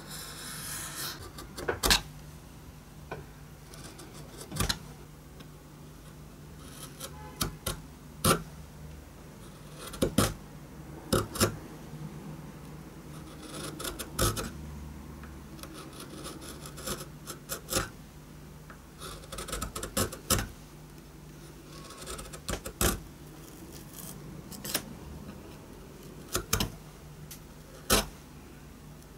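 Hand chisel paring a narrow groove into a hardwood knife-handle blank. Short cutting strokes come as brief sharp cracks and scrapes, irregularly about once a second.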